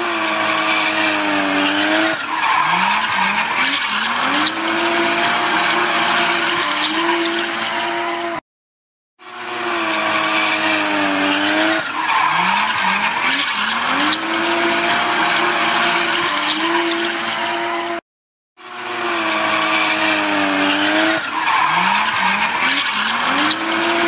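Sports car drifting on tarmac: the engine's revs waver and dip, then climb in several quick steps, over a steady screech of spinning tyres. The same roughly nine-second recording plays three times, each broken off by a brief silence.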